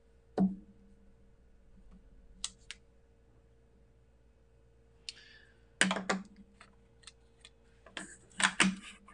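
Sharp taps, clicks and knocks of a rubber stamp and a plastic ink-pad case handled on a wooden desk. There is a loud tap about half a second in and a few light clicks. In the last few seconds come two clusters of sharp taps as the stamp is dabbed on the StazOn ink pad to ink it.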